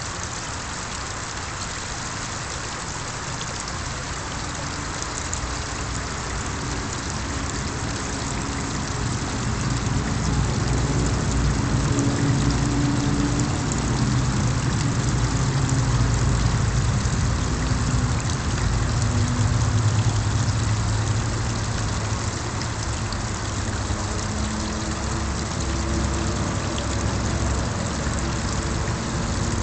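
Small garden-pond waterfall splashing steadily into the pond, with a low motor rumble underneath that grows louder about a third of the way in.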